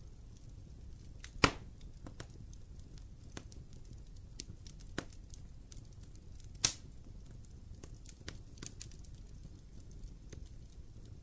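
Wood fire burning in a fireplace: a low steady rumble of flame with scattered crackles and two loud pops, about a second and a half in and near seven seconds.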